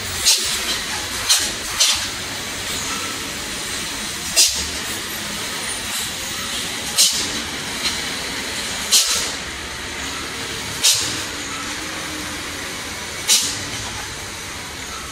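Diesel trucks running slowly uphill through a steep hairpin bend, with a short, sharp hiss every one to three seconds.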